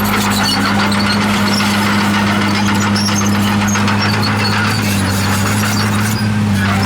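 Komatsu D51PX crawler bulldozer running steadily, its diesel engine humming under the squeal of the steel tracks.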